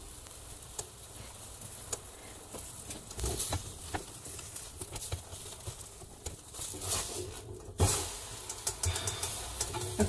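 Pancake batter frying in hot butter in a stainless steel pan, a steady sizzle, with a slotted spatula clicking and scraping against the pan.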